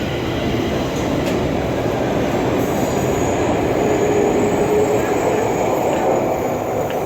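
Stockholm metro train running on its rails: a steady rumble of wheels and carriage with a faint high whine.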